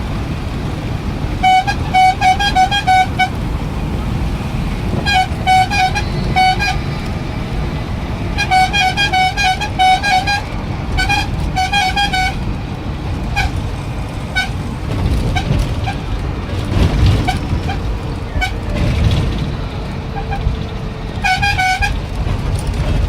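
A vehicle horn honking in bursts of rapid, stuttering beeps, five bursts in all, over a steady rumble of engines and traffic.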